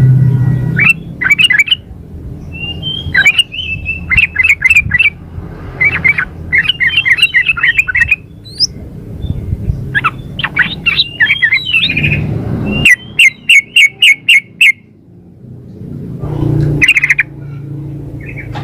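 Yellow-vented bulbul (trucukan) giving bursts of quick, bubbly chattering notes, repeated in short phrases with brief pauses between them. These are calls of a female used to lure and excite a male into calling.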